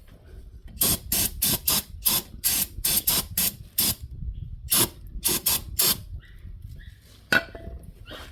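Aerosol can of brake cleaner sprayed in rapid short bursts, several a second, with a brief pause near the middle, to wash spilled engine oil off the underside. A single sharp click near the end.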